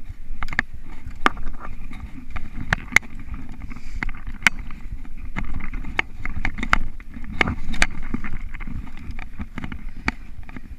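Mountain bike rolling over a dirt singletrack: a steady rumble of the tyres on the trail, broken by many irregular sharp clicks and knocks as the bike rattles over bumps.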